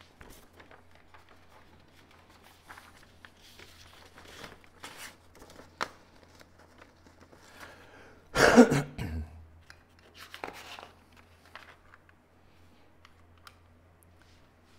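Sheets of drawing paper rustling and sliding as a used sheet comes off a clipboard and a blank one is laid on, with scattered small clicks and taps. A short loud burst comes about eight and a half seconds in, and a smaller one about two seconds later.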